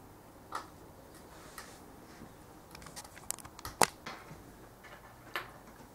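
Light, scattered clicks and taps of small engine parts being handled, as a cam chain tensioner, its gasket and bolts are set against an aluminium cylinder head. A short cluster of clicks comes about three seconds in, with the sharpest click just before four seconds.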